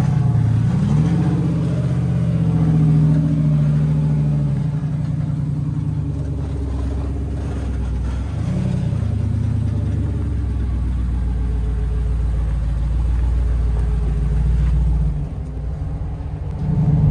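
Hemi V8-swapped Jeep Wrangler's engine running at crawling speed on a rocky trail. It gives a short rev near the start and holds higher for a few seconds, blips again about eight seconds in, then settles back to a low, steady run.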